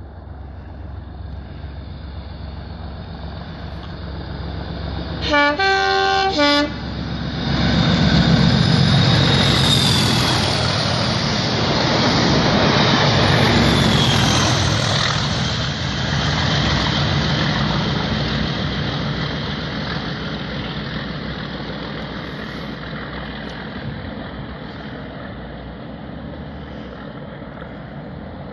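Two Class 37 diesel locomotives with test coaches between them passing at speed: the leading locomotive's horn sounds two short blasts about five seconds in, then its English Electric V12 diesel engine and the rolling wheels pass close by, the rear locomotive's engine follows with a brief high wheel squeal, and the train fades away into the distance.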